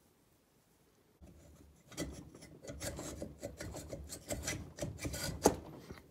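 Aluminium cylinder head of a Fiat 126 BIS two-cylinder engine being worked down over the cylinder studs onto its gasket: irregular metal scraping and rubbing with small knocks, starting about a second in, with one sharper knock near the end.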